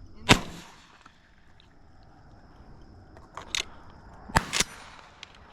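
A shotgun shot a fraction of a second in, trailing off afterward. Near the end come a couple of faint clicks and then two sharp cracks close together.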